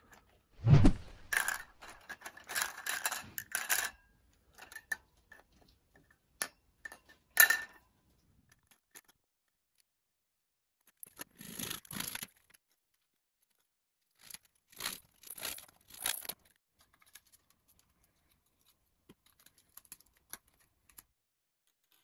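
A thump and a few seconds of clattering as plastic pipe fittings are rummaged in a wire bin, then scattered clicks. Later come two short bouts of saw strokes cutting the ends off plastic T-fittings.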